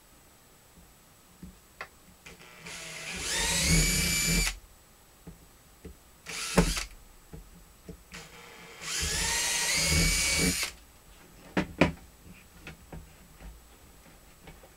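Power drill with a 1/4-inch bit boring two holes through the plastic top of an olive barrel: two runs of about two seconds each, the motor whine rising as it spins up, with a brief blip of the drill between them. Light clicks and knocks of handling follow near the end.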